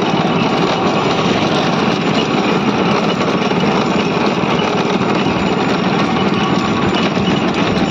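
Motorcycle engine running steadily at low speed, keeping pace with walking bullocks.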